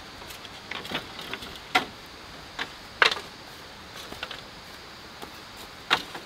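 Split bamboo slats knocking and clattering as they are set down on a bamboo frame: a string of sharp clacks at uneven intervals, the loudest about three seconds in and near the end.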